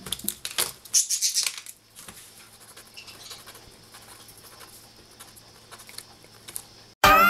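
Felt-tip markers being handled at a desk: sharp clicks and rattles of pens taken from a pencil case, then faint scratching of a marker on paper. Music starts suddenly near the end.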